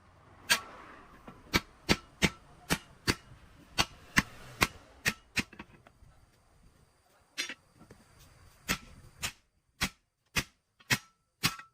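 Hammer blows on metal in a steady series, about two to three sharp knocks a second, with a short pause a little past halfway.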